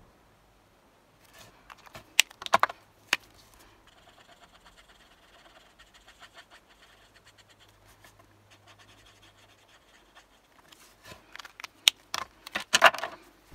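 Ohuhu alcohol markers being handled: a few sharp plastic clicks as caps come off and go on while the markers are swapped, then the marker nib rubbing faintly over the card while colouring. Near the end, a cluster of louder clicks and clatter as the markers are capped and set down.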